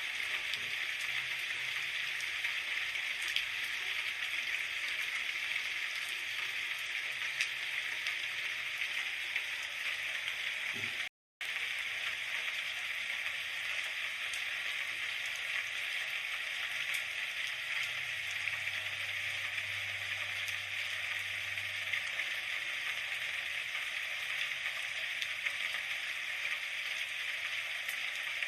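Steady rain falling, an even hiss, briefly cut to silence about eleven seconds in before carrying on.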